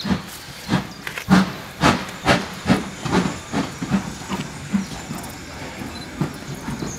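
Steam locomotive's exhaust chuffing in regular beats, about two a second, as it works along the line; the beats grow weaker about five seconds in.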